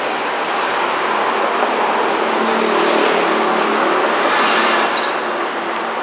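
City road traffic: motor vehicles passing close by with engines running, several swells as they go past and an engine hum most prominent in the middle.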